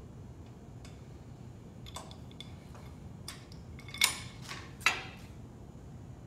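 Sharp metallic clicks and clanks from pumping the handle of a hydraulic pipe bender's bottle jack while it bends rigid aluminum conduit. A few separate ticks, the two loudest about four and five seconds in.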